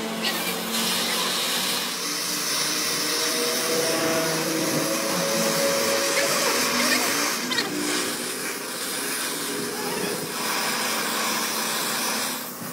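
Oxy-fuel gas torch flame hissing steadily as it heats a threaded steel stud red-hot, dropping away near the end.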